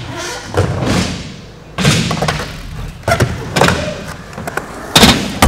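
Skateboard rolling on a wooden ramp, its wheels making a steady rumble, with thuds and clacks as the board hits the ramp surface; the rolling gets loud about two seconds in and several sharp knocks come near the end.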